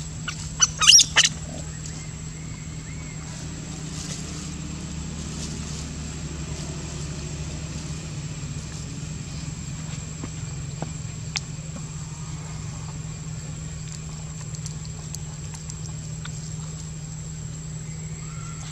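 Young macaque giving a few quick, shrill squeals about a second in, the protest cries of a tussle over food. After that only a steady low hum and a few faint ticks remain.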